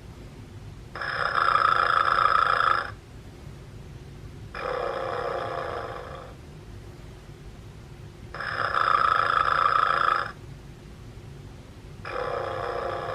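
Vintage snoring teddy bear toy giving out its snore sound. It alternates a louder, higher snore of about two seconds with a softer, lower one, four snores in all, spaced a few seconds apart.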